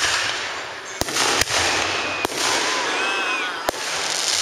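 Aerial fireworks shells bursting: about five sharp bangs at uneven intervals, two of them close together, over a continuous noisy wash.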